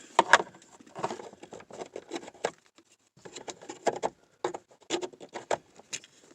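Handling noise from plugging an OBD-II scan tool into the car's diagnostic port under the dash: a string of irregular clicks, taps and rustles of the plug and cable.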